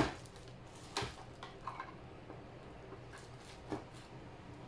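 Light knocks and clatter of an ice cream maker and its packaging being handled, with a sharp knock at the start, another about a second in, and a few more around three and a half seconds in.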